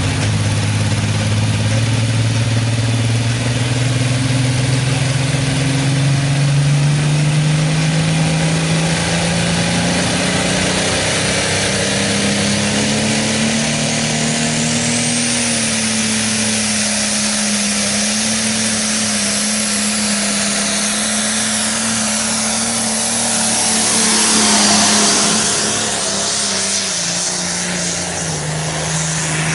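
Modified pulling tractor's engine working hard under load as it drags a weight sled. Its pitch climbs steadily over the first dozen or so seconds and then holds at high revs. The sound grows loudest about 25 seconds in.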